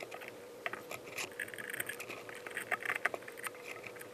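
Faint handling clicks, taps and scrapes of small metal parts as springs and screws are fitted under a 3D printer's heated bed plate, over a faint steady hum.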